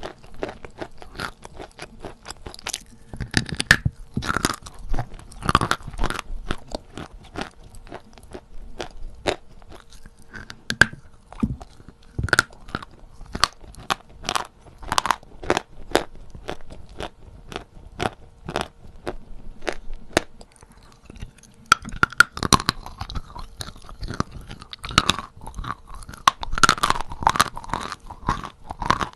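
A person bites and chews natural Novy Oskol chalk close to the microphone, with many sharp crunches. The crunching is densest a few seconds in and again over the last seven seconds or so, with sparser bites in between.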